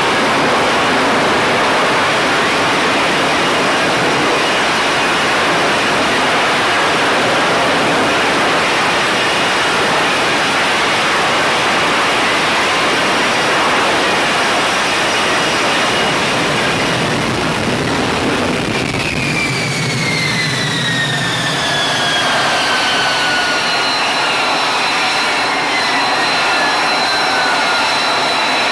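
F-35B Lightning II's jet engine roaring loudly in a low hover during a vertical landing. About two-thirds through, the roar drops away and several whines fall steadily in pitch as the engine throttles back on deck.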